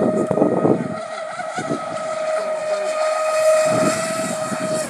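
Radio-controlled racing boat running flat out across the water, its motor giving a steady high whine.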